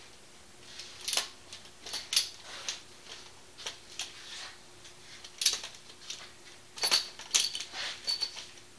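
Irregular small metallic clicks and clinks as a scope mount is fitted and clamped onto the Picatinny rail of a Byrna TCR launcher. A few sharper, ringing clinks come about seven seconds in.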